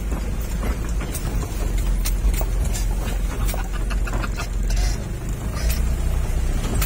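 Truck engine running with a steady low rumble, with frequent knocks and rattles as it drives over rough off-road ground.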